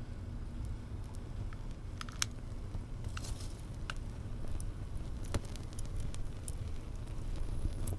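Charcoal catching fire in a barbecue grill: scattered small crackles and plinky pops from the coals over a low, steady rumble of flame.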